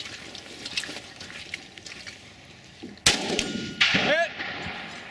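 A single rifle shot about three seconds in, followed under a second later by a steel target ringing as it is hit, its tone wavering as it dies away.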